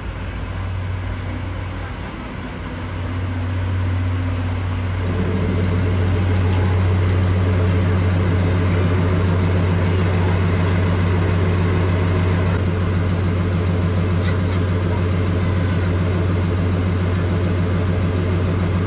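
JNR DE10-class diesel locomotive's V12 diesel engine running at idle: a steady low drone, with a higher hum joining about five seconds in as the sound grows louder and then holds steady.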